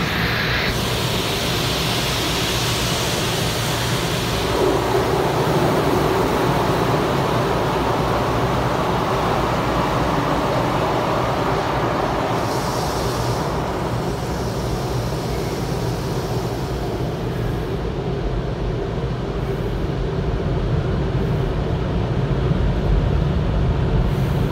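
Automatic tunnel car wash heard from inside the car: a steady wash of water spray and cloth strips sweeping over the body and windshield. There is a stronger hiss of spray in the first few seconds and again briefly about 13 seconds in, and it settles to a lower rumble near the end.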